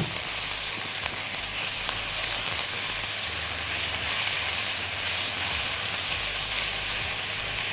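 Chopped onion, carrot and celery sizzling steadily as they fry in hot ghee in a pan, stirred with a silicone spatula.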